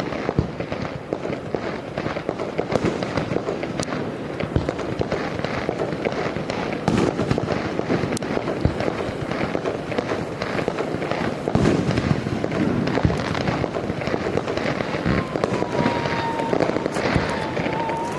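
Firework crackling steadily: a dense stream of small rapid pops and crackles, with a faint thin whistling tone near the end.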